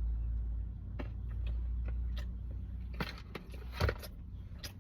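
A person biting into and chewing a soft sandwich cookie, with a few short crunchy strokes and one stronger thump near the end, over a steady low rumble that fades partway through.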